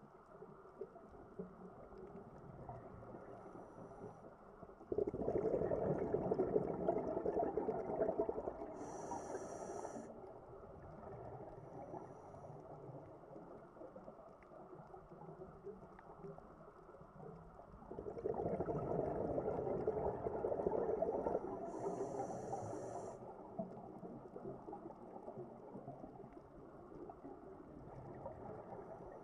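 A scuba diver breathing underwater beside the camera: two long rumbling rushes of exhaled bubbles about 13 seconds apart, each ending in a short high hiss from the regulator, over a faint steady underwater murmur.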